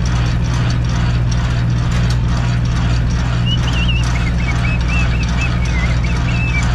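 Semi truck's diesel engine running steadily. A high warbling chirp sounds over it from about halfway in.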